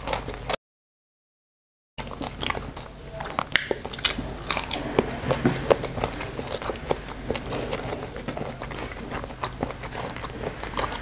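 Close-miked chewing and wet mouth clicks of a person eating rice and grilled fish with the fingers, as a steady run of small clicks. Near the start the sound drops out to dead silence for over a second.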